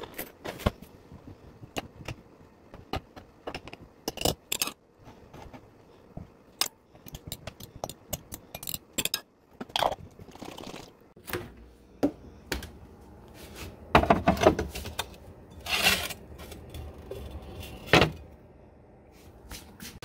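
Kitchen knife slicing green tomatoes on a wooden butcher-block cutting board: irregular clicks and knocks of the blade on the board, with scrapes and handling. The loudest knocks and scrapes come in the last third.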